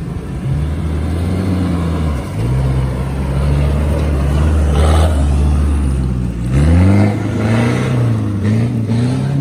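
Off-road 4x4 SUV engine pulling hard under load through a rutted dirt section. The revs climb about two seconds in and rise sharply again about six and a half seconds in, with a brief noisy spray of dirt from the tyres around the middle.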